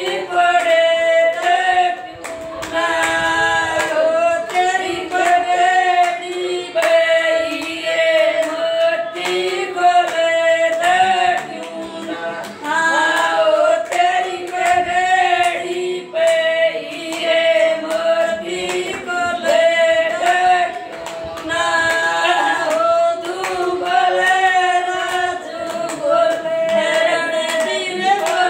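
A small group of women singing a sagai geet, a folk song for an engagement, unaccompanied, with steady rhythmic hand-clapping keeping the beat.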